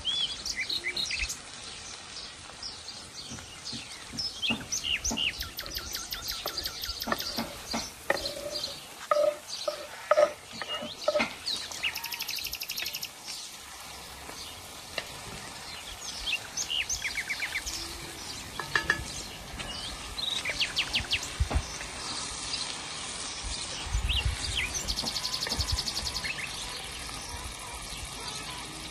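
Shredded cabbage frying in a large black pan over an open fire while a metal spatula stirs and scrapes through it, with birds chirping and singing throughout.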